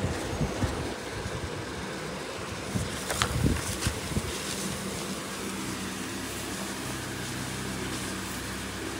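A steady low mechanical hum, with a few short rustles and taps of paper label sheets being handled on a stone countertop, the clearest between about three and four seconds in.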